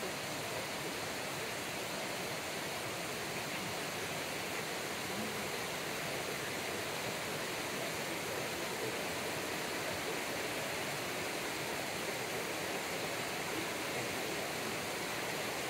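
Shallow river rushing over rocks and small rapids, a steady even rush of water.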